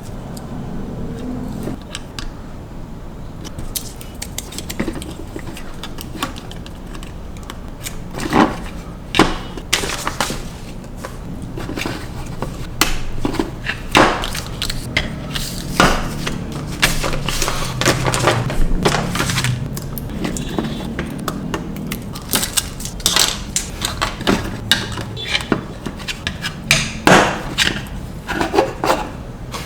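Small plastic building bricks clicking and clattering as pieces are handled and pressed together: irregular sharp clicks, sparse at first and busier from about a quarter of the way in.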